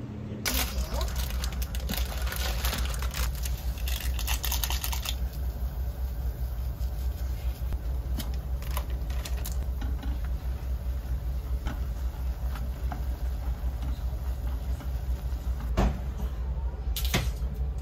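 Kitchen sounds from a pot of Jjapaghetti instant noodles being cooked on a gas stove: a steady low machine hum throughout, with a busy stretch of rustling and clicks in the first few seconds and scattered clicks of chopsticks or utensils against the pot after that.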